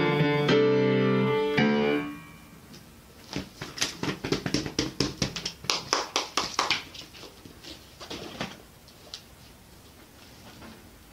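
Grand piano sounding its final chords, cut off about two seconds in as the piece ends. Then a quick run of handclaps for about four seconds, thinning out to a few last strikes.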